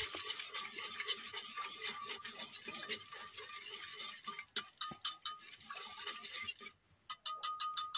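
Wire whisk beating yogurt in an aluminium pot, a fast, continuous wet swishing and rattling of the wires. After about four and a half seconds it breaks into separate sharp taps, with a quick run of clicks near the end.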